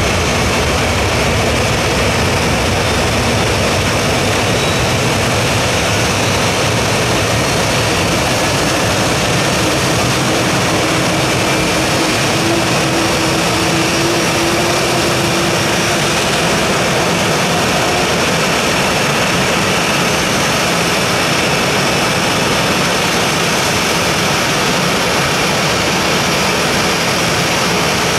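Boeing 737-800's CFM56-7B jet engines running steadily at idle, a loud even rush of noise. A faint hum comes and goes in the middle.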